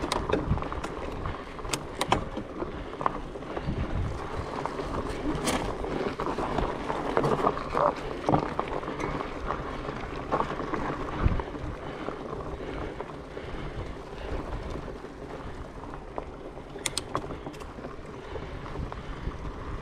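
Trek Farley 9.8 fat bike rolling over a dirt trail: a steady rumble from the tyres, with scattered sharp clicks and knocks as it goes over bumps, and wind on the microphone.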